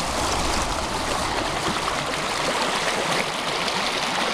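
Shallow stream rushing and splashing over rocks and around a person's legs sitting in the current, a steady watery rush.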